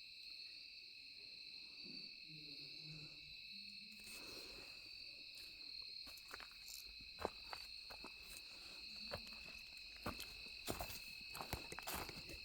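A steady, high chorus of night insects, crickets or katydids, trilling throughout. A faint low owl hoot sounds in the first few seconds. From about four seconds in there are scattered crunching clicks.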